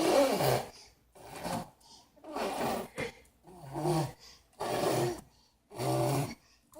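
A nine-month-old baby's raspy, growl-like vocal noises, repeated six times at about one a second, each a short breathy burst.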